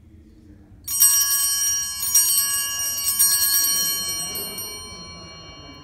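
A handled set of three altar bells (Sanctus bells) shaken in three short rings about a second apart, starting about a second in, then left to ring out and fade. This is the three-ring pattern of the third ringing at Mass.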